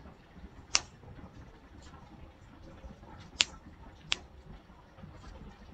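Three sharp single clicks of a computer mouse, about a second in and twice more a little past the middle, over faint room hiss.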